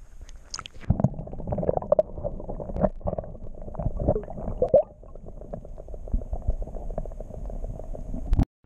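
Water splashing as an action camera goes under, then muffled underwater gurgling and sloshing against the camera housing during the release of a largemouth bass. The sound cuts off abruptly near the end.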